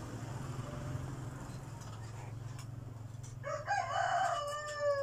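A rooster crowing once, starting about three and a half seconds in and ending in a long falling tone. A low steady hum runs underneath.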